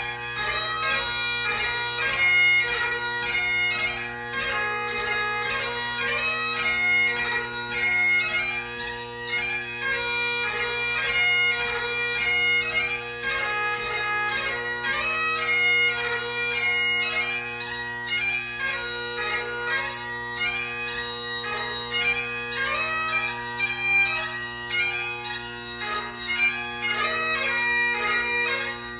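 Great Highland bagpipe playing a tune from a march, strathspey and reel set: steady drones under a chanter melody with rapid note changes.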